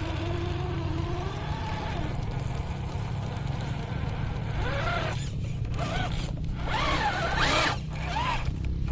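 Electric drive motor and gearbox of an RGT EX86190 RC 4x4 off-roader whining. From about halfway the pitch rises and falls in quick spurts as the throttle is blipped, over a steady low rumble.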